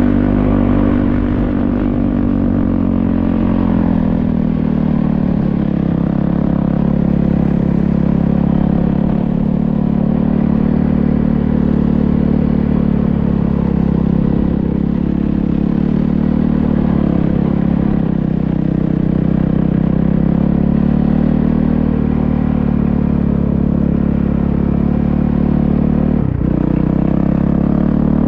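Vehicle engine, likely a motorcycle's, running steadily under load on board, its pitch rising and falling gently as the throttle varies.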